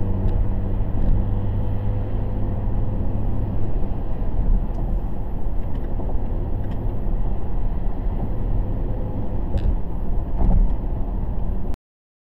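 Car cabin road noise while driving at freeway speed: a steady low rumble of tyres and engine. It cuts off suddenly near the end.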